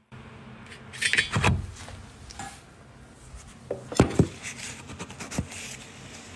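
Handling noise on a kitchen counter: rustling about a second in, then a few sharp knocks and clicks around four to five seconds in, as things are moved and set down.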